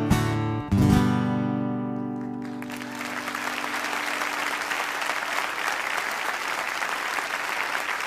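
Acoustic guitar strumming the song's last chords; a final chord rings out and fades over about two seconds, then an audience applauds.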